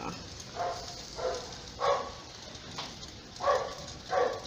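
A neighbour's dog barking repeatedly: three short barks in quick succession, a pause, then two more near the end.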